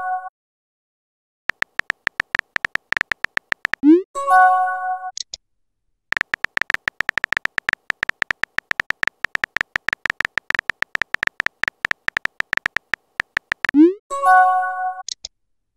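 Phone keyboard tap sounds: rapid clicks as a text message is typed, broken twice by a messaging chime, a quick rising swoop followed by a short chord of tones, about four seconds in and again near the end.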